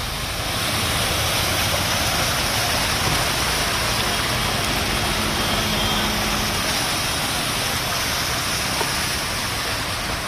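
Vehicles driving through floodwater on a road: a steady wash of splashing, rushing water with engines running underneath.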